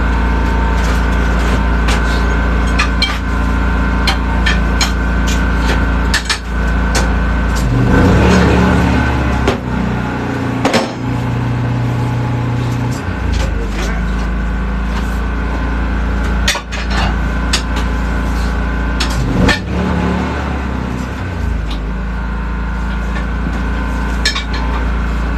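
Portable generator running steadily, with scattered metallic clicks and knocks from work on a tire-changing machine. Twice its running note shifts for a few seconds, as under a load.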